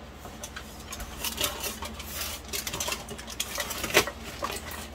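Crumpled aluminium foil crinkling and crackling in irregular bursts as a foil packet is pulled open by hand, with one sharper crackle about four seconds in.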